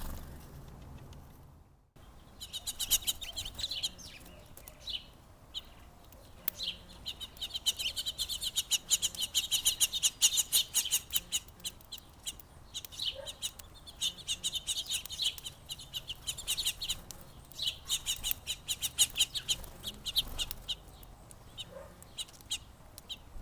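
Small songbirds at a feeder chirping and chattering in fast runs of short, high calls, coming in several bouts with brief lulls between them.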